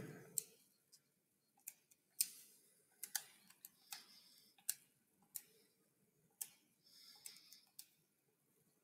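Faint, irregular clicks and taps, about a dozen sharp ones at uneven spacing with near silence between.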